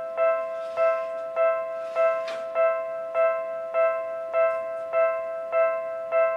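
Japanese railway level crossing warning bell ringing: an electronic ding repeated evenly, about once every 0.6 seconds, eleven times. It signals that a train is approaching and the crossing barriers are down.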